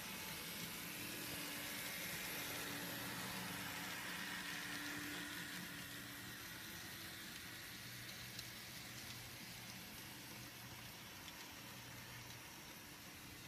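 N scale model train running on its track: the small electric motors of its two diesel locomotives give a low steady hum over a hiss of wheels on rail, easing a little in the second half as the train moves along.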